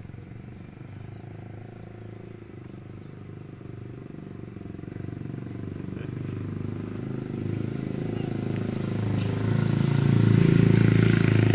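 A motor vehicle's engine running at a steady pitch, growing steadily louder through the second half and loudest near the end.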